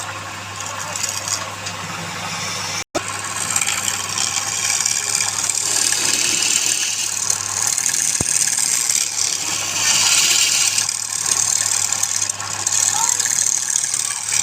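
A woodworking machine running steadily, a low hum under a dense hiss. The sound cuts out for an instant about three seconds in, then carries on.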